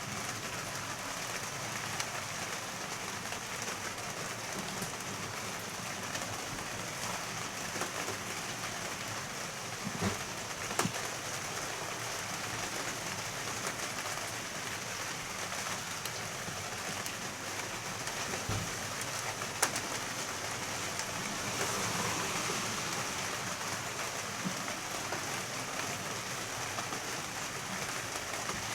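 Steady rain falling, with a few sharper knocks of drops about ten and twenty seconds in.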